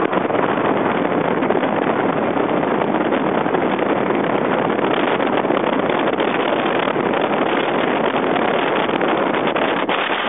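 Steady rush of wind on the microphone mixed with tyre noise on asphalt, from a Pino recumbent tandem coasting fast downhill.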